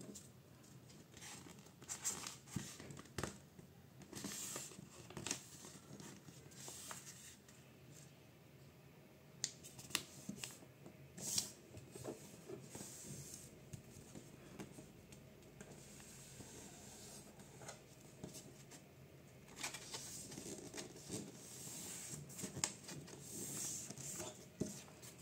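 A sheet of printer paper being folded and creased by hand into a paper airplane: faint, scattered rustles and the swish of fingers pressing along creases, with a few sharper clicks. The rustling gets busier near the end.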